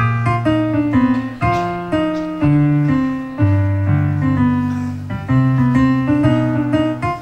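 Keyboard playing an accompaniment of struck chords over a bass line, each chord fading before the next is played.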